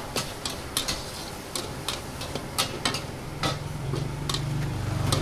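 Metal spatula striking and scraping a wok in sharp, irregular clinks, about two a second. A low steady hum comes in about three and a half seconds in.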